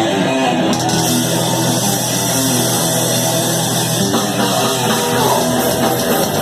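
Thrash metal band playing live, loud distorted electric guitars and drum kit; the sound grows fuller, with much more high-end, about a second in.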